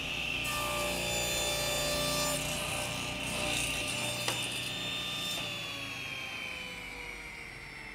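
Table saw blade running and cutting a 45-degree miter through a narrow hardwood strip; the cut itself is loudest for about two seconds near the start. Over the second half the saw's whine drops slowly in pitch, with a single sharp click just after four seconds.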